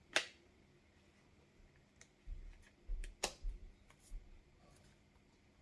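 Faint handling noises of a smartphone and its case: two sharp clicks about three seconds apart, with soft low bumps in between.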